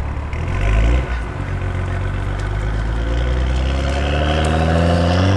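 BMW N55 turbocharged inline-six with a VRSF catted downpipe accelerating under load, its exhaust note rising steadily in pitch as the revs climb.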